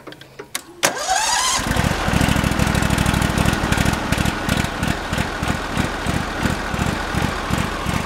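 Briggs & Stratton Vanguard engine on a Ditch Witch trencher, started cold on choke: it cranks about a second in, catches within a second, and settles into a steady running beat.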